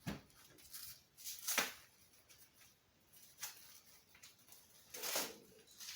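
Intermittent rustling and light handling noises from packages and parts being unwrapped, in a few short bursts, the clearest about a second and a half in and again around five seconds in.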